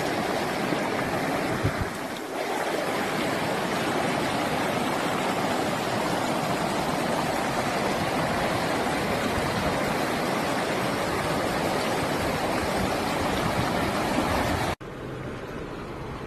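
Steady rush of running rainwater, an even roar with no pauses. About fifteen seconds in it cuts off abruptly to a quieter steady noise with a low hum.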